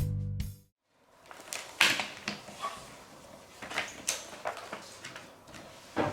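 Organ background music cuts off in the first second, followed by scattered light knocks, taps and rustles of hands-on work, with a sharper knock near the end.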